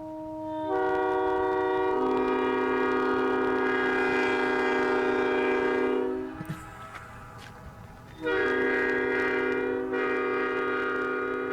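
Multi-chime locomotive air horn sounding two long blasts of a chord. In the first, lasting about five seconds, its notes come in slightly staggered, the lowest joining about a second later. After a break of about two seconds, a second blast starts and carries on.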